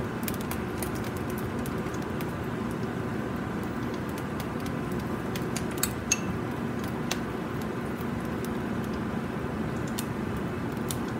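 A steady low mechanical hum in a kitchen, with a few light clicks of a metal spoon against a small ceramic ramekin about six seconds in.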